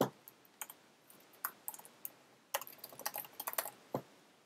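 Typing on a computer keyboard: a few separate keystrokes, then a quick run of them about two and a half seconds in, ending with a heavier key press near the end.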